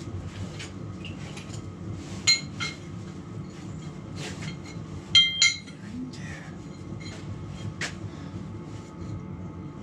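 Steel parts clinking and ringing as they are handled and knocked together: two clinks about two seconds in and a louder pair about five seconds in, with smaller taps between, over a steady low hum.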